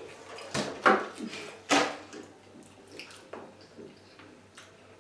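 Plastic soda bottles being handled and set down on a table: a few loud knocks and crinkles in the first two seconds, then quieter clicks and chewing from fast banana-eating.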